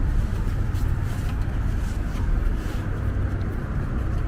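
Steady low rumble of outdoor background noise, like wind and traffic, with a few faint light clicks as the e-bike's wiring connector is handled.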